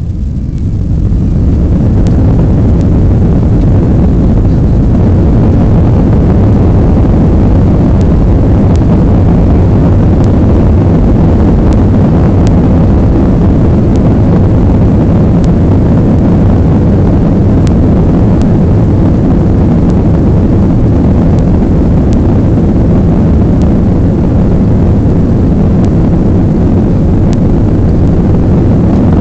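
Aircraft engines at takeoff power: a loud, steady low rumble that builds over the first second or two and then holds, with a few faint ticks scattered through it.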